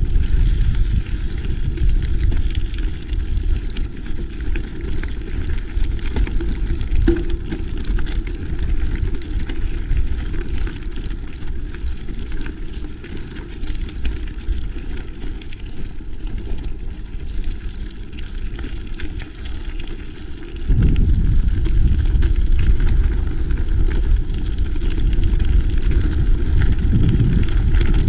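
Wind rumbling on the microphone and rolling noise from a mountain bike being ridden along a trail. The rumble jumps louder about three quarters of the way through and stays there.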